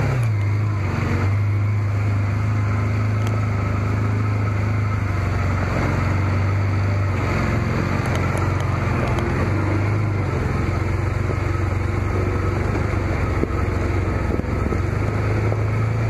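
Can-Am Commander UTV's V-twin engine running steadily as the side-by-side drives along, heard from on board; its pitch dips a little around the middle and rises again near the end.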